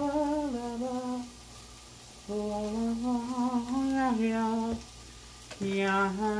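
A man humming a tune to himself, in phrases of a few seconds with short pauses between them.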